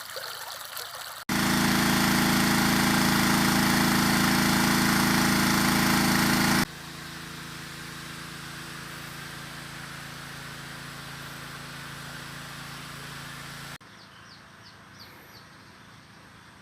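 Small 6.5 hp petrol engine driving a water pump, running steadily at constant speed. It is heard in abrupt cuts: about a second of water gushing first, then the engine loud and close, then much quieter, then faint near the end.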